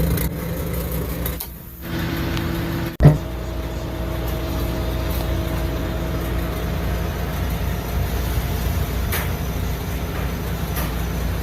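Steady low machine hum, broken by a brief dip and then one sharp, loud click about three seconds in.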